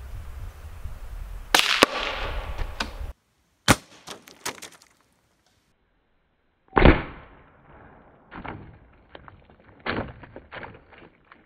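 A single .22 LR rifle shot about two seconds in, a short sharp report. Later the shot and the bullet's hit are heard again from beside the water jugs: a loud sharp crack that rings down briefly, followed by a scatter of smaller knocks as the struck gallon jug is knocked over.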